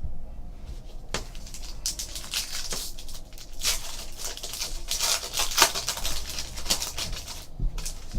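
A trading-card pack being torn open and its cards handled: irregular crinkling and rustling of the wrapper with small clicks, busiest in the middle.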